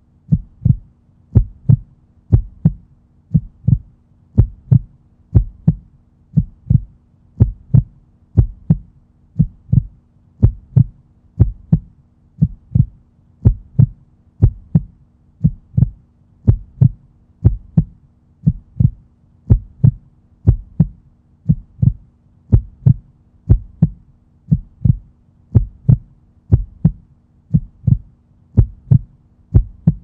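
Heartbeat: a steady, even lub-dub, each beat a pair of dull low thuds, repeating about once a second.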